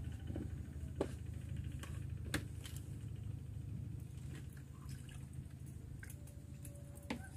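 Scattered light clicks and taps of fishing tackle being handled over a steady low rumble.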